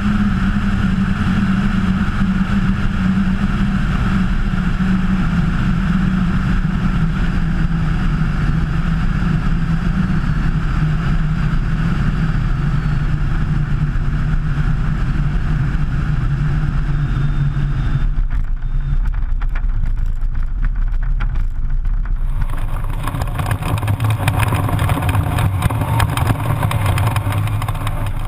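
Kitfox IV light aircraft's engine and propeller running steadily, the engine note slowly falling in pitch. About eighteen seconds in the sound changes abruptly, and from about twenty-two seconds a rushing noise joins a lower engine tone.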